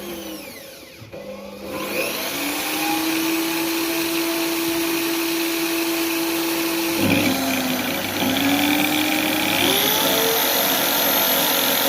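An electric grinder sharpening a blunt sheep-shearing blade: a motor runs, then about two seconds in the loud, steady hiss of steel on the grinding wheel begins. The motor's pitch sags about seven seconds in and climbs again as the blade is pressed and eased.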